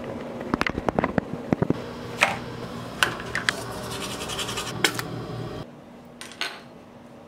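A quick run of small clicks and knocks from handling. Then a toothbrush scrubbing teeth, with a few sharper clicks. About five and a half seconds in, the sound drops to a quieter background with a couple of light knocks as something is handled on a desk.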